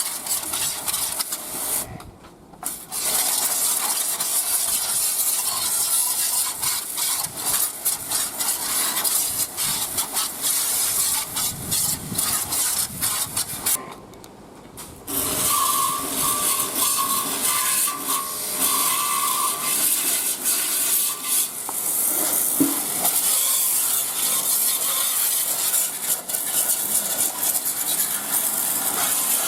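Hissing water spray with rubbing on an old motorcycle's bare frame as it is washed, cutting off briefly twice.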